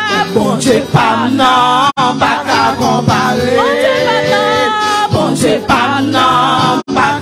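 Church worship singing: voices carrying a gospel song over steady low held notes. The sound cuts out for an instant twice.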